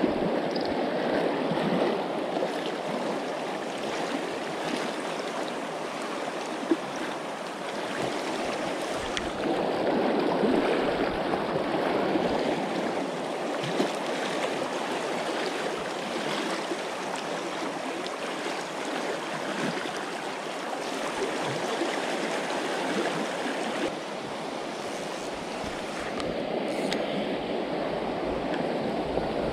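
Steady rush of a mountain trout river flowing over stones.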